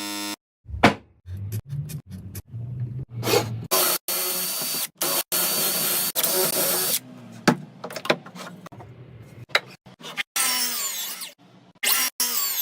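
A small power tool, like a drill, runs steadily with a thin whine for about three seconds, amid short knocks and clicks of tools being handled. Near the end comes a brief squeaky scraping.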